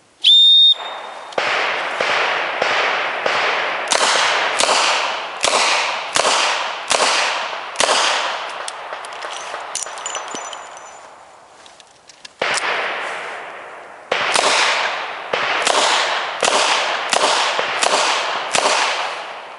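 A short range whistle blast, then a string of Smith & Wesson 686 Plus revolver shots at about one and a half a second. About halfway through, the firing stops for a few seconds of small metallic clicks as the revolver is reloaded with a full moon clip. A second string of shots follows at the same pace.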